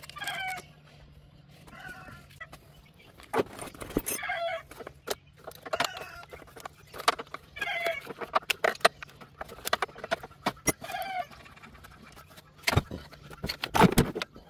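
Hens clucking over and over, mixed with sharp metallic clicks and clanks of hand tools on the battery terminals and bolts under a car's hood; the loudest clanks come about 4 seconds in and twice near the end.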